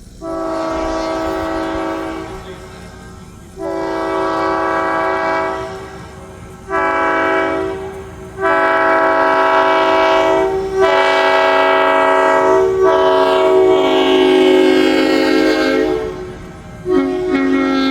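Diesel locomotive's multi-chime air horn sounding a chord in the long, long, short, long pattern of the standard grade-crossing signal, with the last blast held for several seconds. A further blast starts near the end.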